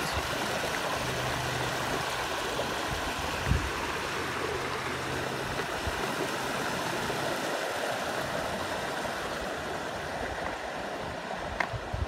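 Steady rush of water from a waterfall. A low steady hum runs under it and stops about seven seconds in. There is a single soft thump about three and a half seconds in.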